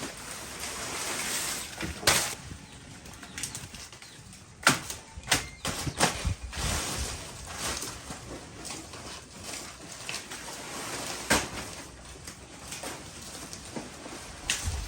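Rustling and scraping, broken by a few irregular sharp knocks: one about two seconds in, a cluster around five to six seconds, and one near the end.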